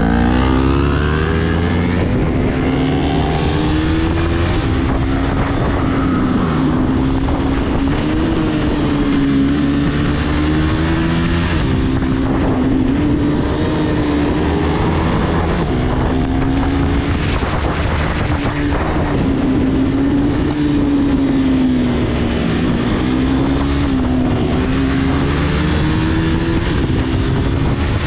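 Motorcycle engine on a ride, revving up with a sharply rising pitch at the start, then running at a steady cruise with its pitch drifting gently up and down.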